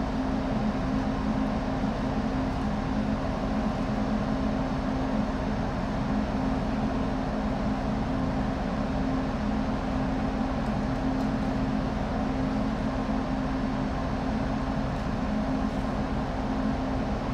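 Steady drone of the moored survey ship Koyo (HL12)'s machinery running as she readies to leave port: a low hum with a few steady tones over an even rushing noise.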